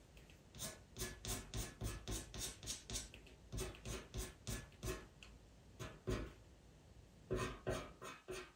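Pastel pencil scratching short, quick hair strokes across Pastelmat paper, about three strokes a second, with a brief pause about six seconds in before the strokes resume.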